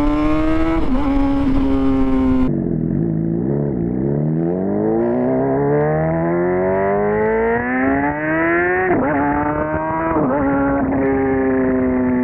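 Honda CBR600RR inline-four engine running through a full Toce exhaust system, heard close to the muffler from a couple of seconds in. The pitch drops low, then climbs steadily for about five seconds under acceleration. It dips briefly twice as the gears change, then settles into a steady cruising note.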